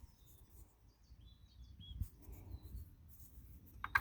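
Faint bird chirps: a few short high calls at the start and again about a second in, over a low rumble, with a soft thump about two seconds in.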